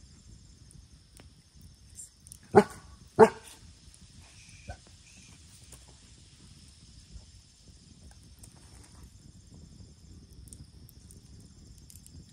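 A dog barking twice, two sharp barks about half a second apart a few seconds in, with a softer short sound a moment later.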